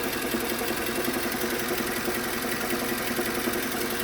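Suzuki Grand Vitara's J24B 2.4-litre four-cylinder engine running at idle with a rapid, even knock from the engine bay, the knock that the title is about, heard more from under the bonnet than from underneath.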